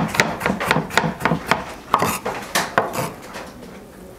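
Kitchen knife chopping a garlic clove on a wooden cutting board: quick knocks of the blade on the wood, about three or four a second, stopping about three seconds in.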